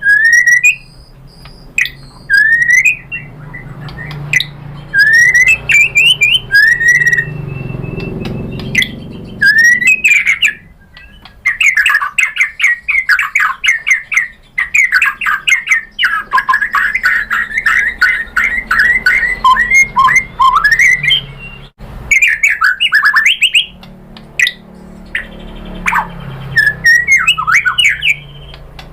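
White-rumped shama singing: loud whistled phrases and sweeping notes, with a long rapid chattering run of notes in the middle.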